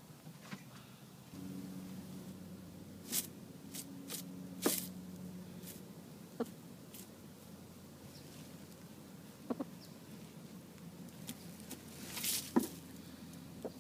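Rhode Island Red hen in a straw nest box, straining to lay, making a low, steady crooning hum from about a second in until about six seconds in. Scattered rustles and taps of straw run throughout.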